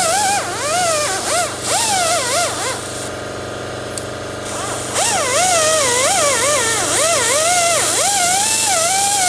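Background music: a wavering, gliding theremin-like electronic melody that drops out for a moment around three seconds in and then returns.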